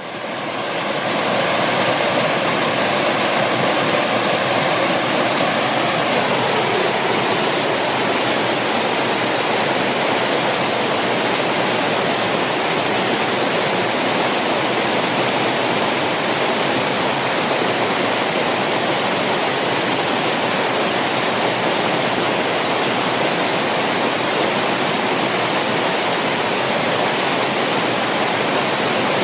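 Waterfall: a steady, unbroken rush of falling water, fading in over the first couple of seconds.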